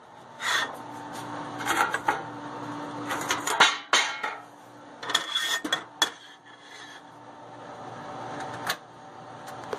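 Kitchen cookware being handled at an electric coil stove: a frying pan and spatula knocking and scraping, and the metal storage drawer under the oven rattling, in a string of sharp clatters over a faint steady hum.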